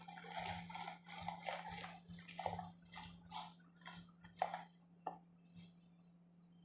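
Water splashing and dribbling in short, irregular bursts that stop about five seconds in.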